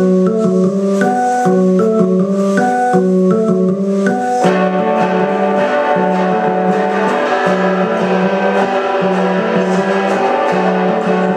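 A garage-pop band playing live. An electronic keyboard plays a repeating organ-like riff over a bouncing bass line. About four and a half seconds in, electric guitar and drums come in and fill out the sound.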